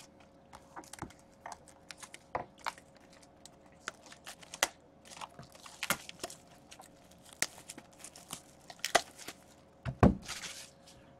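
A sealed cardboard hobby box of hockey cards being handled and opened by hand: scattered taps and clicks with crinkling and tearing of its wrapping, and a louder thump with a rustle about ten seconds in. A faint steady hum runs underneath.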